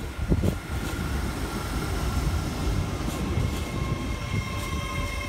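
Hitachi Azuma electric train (LNER Class 801) running past along the platform: a steady rumble of the wheels on the rails with a couple of knocks in the first second, and a steady electric whine from its traction equipment, a second set of whining tones coming in about three and a half seconds in.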